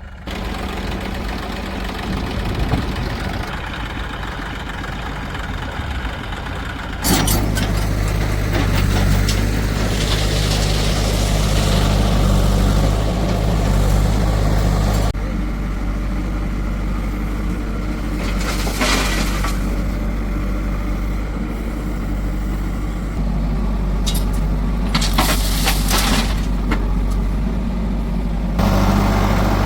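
Heavy diesel engines of a backhoe loader and tractors running steadily, with a few short bursts of hissing or clanking over them. The engine sound shifts abruptly three times.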